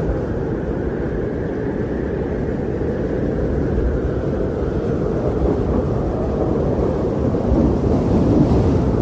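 Steady low wind, a deep, even rush with no distinct tones, swelling a little near the end.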